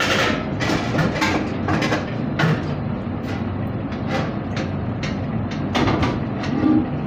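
Marinated chicken pieces being pushed onto a skewer over a steel mixing bowl: irregular clicks and knocks, over a steady low rumble.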